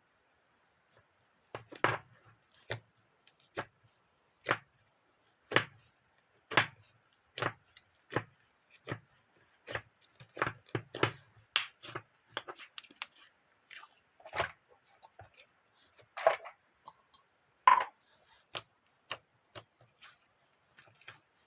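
A series of light, sharp knocks and clicks, roughly one or two a second and irregular, with two louder ones toward the end.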